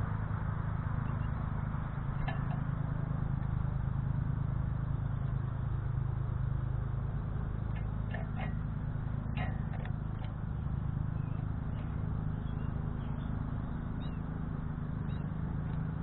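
Steady low hum and rumble with a few faint, scattered clicks, the clicks fitting an American goldfinch picking and cracking seeds on the feeder tray.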